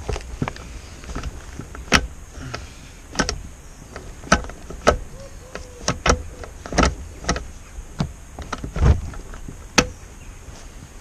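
Irregular metallic clicks and clunks, about a dozen of them at uneven spacing, from a gear lever being worked through the gears of the MG Midget 1500 gearbox.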